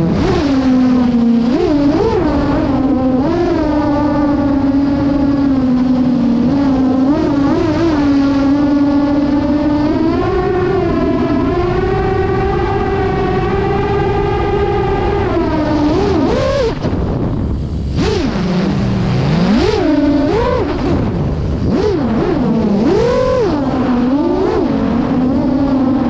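Eight-inch FPV freestyle quadcopter with two-blade 8x4.5 props on 2807.5 motors, heard through its onboard GoPro: a loud, steady, pitched prop buzz. The pitch holds level for several seconds at a time and swoops up and down with the throttle. About two-thirds of the way through, pitch and level drop briefly, then several quick rises and falls follow.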